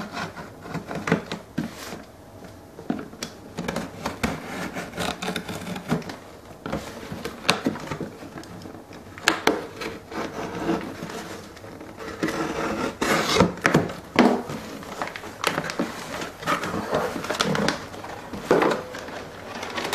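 A cardboard shipping box being opened by hand: packing tape picked at and peeled off, cardboard flaps rustling, and the box scraping and knocking on the work mat in irregular bursts.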